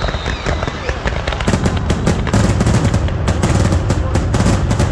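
Fireworks going off in rapid, dense volleys of sharp bangs and crackles, thickening into a near-continuous barrage about two seconds in.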